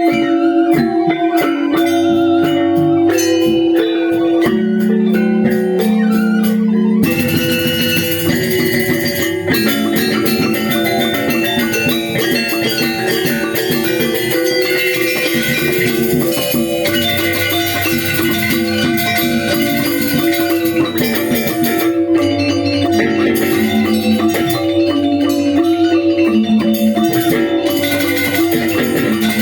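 Balinese gamelan angklung ensemble playing a tabuh kreasi, bronze metallophones ringing in quick interlocking patterns. About seven seconds in, the sparser texture gives way to a dense, full passage of rapid strokes.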